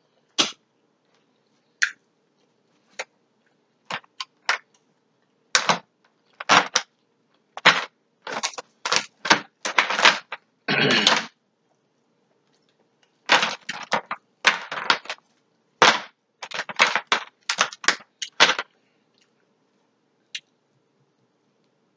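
Cooked crab leg shells being cracked and snapped apart by hand close to the microphone: a string of sharp cracks in irregular clusters, with a longer crunching stretch about halfway through.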